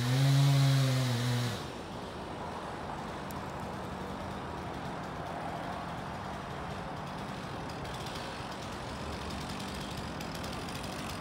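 Stihl 362 C two-stroke chainsaw running at high revs; its engine note swells briefly, then drops away and stops about a second and a half in. After that a steady, quieter low engine hum carries on.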